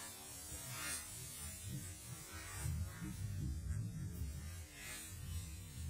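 A crackling firecracker going off, with faint scattered crackles and pops over a low uneven rumble on the microphone.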